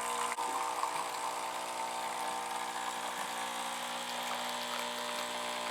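Nescafé Dolce Gusto Drop capsule coffee machine brewing: its pump runs with a steady hum, a little noisy, as hot water is forced through the capsule. A short click about a third of a second in.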